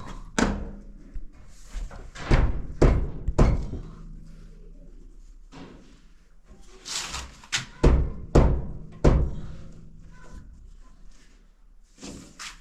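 Hammer blows on the wooden door being repaired: a run of irregular, sharp knocks, then a quieter stretch of a few seconds, then another run of knocks.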